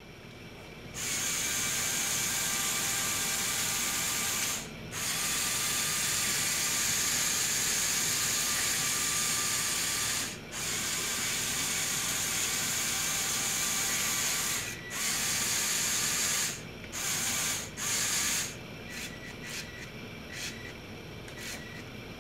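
Electric motors and plastic gearing of a Lego Technic 9398 crawler whining as it drives slowly on tracks, in long runs with a few brief stops, then short stop-start bursts near the end. The owner finds this track design slow and hard on the servos.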